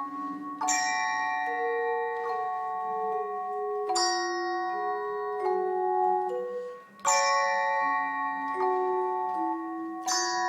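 Bell ensemble playing a slow melody: bright ringing chords are struck about every three seconds, and lower single notes change between them. The loudness dips briefly just before the chord about seven seconds in.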